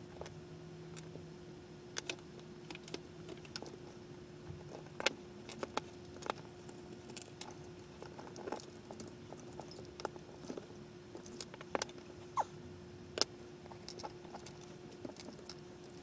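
Irregular small metal clicks and clinks of CPU cooler parts being handled and fitted together on a workbench, with the loudest clicks about five and thirteen seconds in. A steady faint hum runs underneath.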